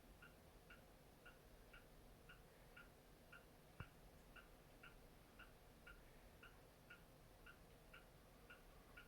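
A clock ticking steadily and faintly, about two ticks a second, with a single sharp click about four seconds in.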